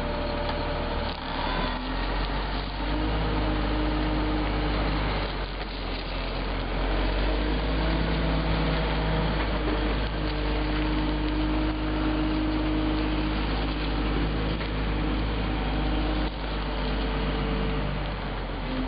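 Caterpillar 140G motor grader's six-cylinder diesel engine running steadily at low speed as the grader moves slowly away, its pitch shifting slightly but never revving hard.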